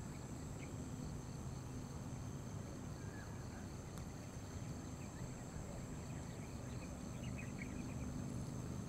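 Faint outdoor ambience: a steady high-pitched insect drone over a low background rumble, with a few faint bird chirps scattered through it.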